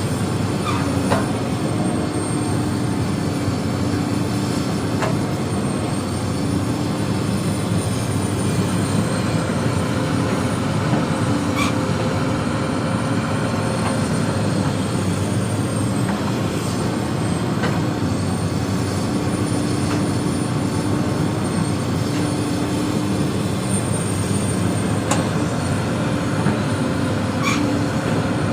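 Hydraulic excavator's diesel engine running steadily under load as it digs and moves earth, with a few short sharp knocks scattered through.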